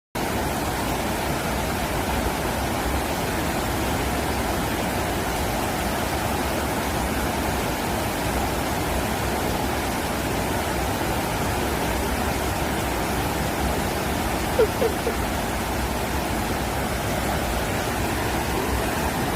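Steady rushing water, a dense even noise that starts suddenly and holds without a break. Two brief squeaks stand out about three-quarters of the way in.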